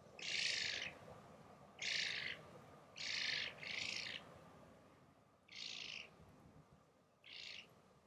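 A bird giving harsh, rasping calls six times, each about half a second long, the third and fourth close together as a pair. A steady low background noise lies beneath them.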